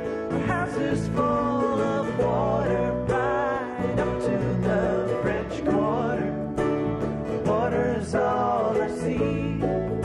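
Acoustic Americana string band playing live: acoustic guitars and other plucked strings, with singing over them.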